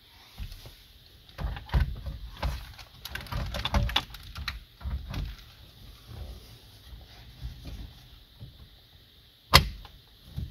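Gloved hands fitting a large touchscreen head unit onto its dash mounting bracket: irregular plastic knocks, rubbing and handling clicks, with a single sharp click near the end.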